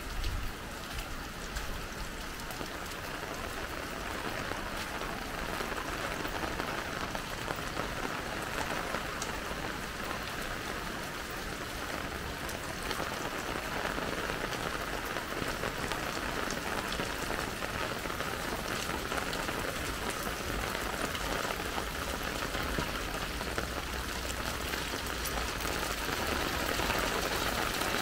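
Heavy rain falling, a steady, even hiss with no let-up.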